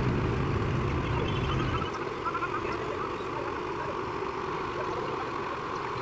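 Heavy farm diesel engine idling steadily. A deeper low rumble drops away about two seconds in.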